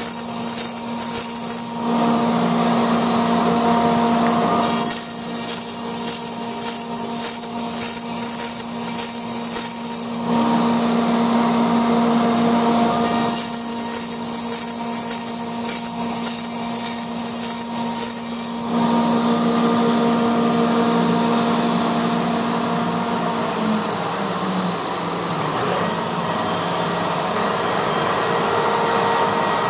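Laguna SmartShop II CNC router running and cutting through foam: a steady machine whine over a high hiss, its tone changing every few seconds as the machine moves.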